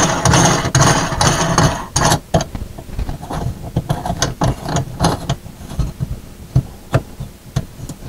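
Kitchen sink basket strainer's locknut being spun onto its threads by hand: rustling and scraping for the first two seconds or so, then scattered light clicks and taps.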